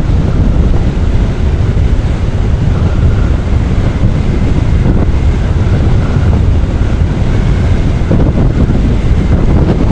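Loud, steady wind buffeting on the microphone of a rider on a moving scooter.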